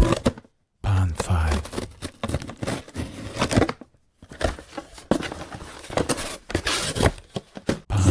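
Packaging of a phone case being opened by hand: irregular bursts of crinkling, rustling and tearing plastic and cardboard. There is a brief pause about half a second in and another about four seconds in.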